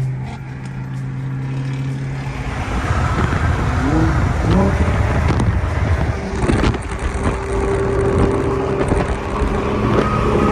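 Car engines and road noise while driving. A steady low engine tone stops about two seconds in. Louder, rougher engine and tyre noise follows, with a brief rising pitch around four seconds in.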